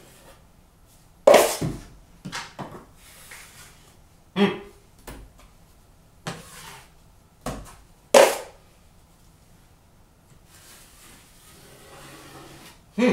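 Steel drywall taping knife working joint compound: a series of sharp scrapes and knocks, two of them louder, then a longer, softer scrape near the end.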